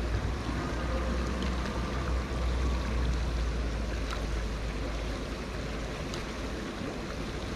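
Steady rush of water at a canal spillway, with low wind rumble on the microphone that eases off about five seconds in.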